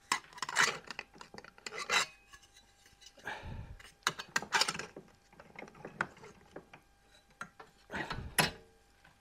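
Aluminium test strips scraping and clattering against the jaws of a bench vice as they are set in and the vice handle is turned to clamp them. Irregular short scrapes and knocks come in about half a dozen bunches, with quiet gaps between.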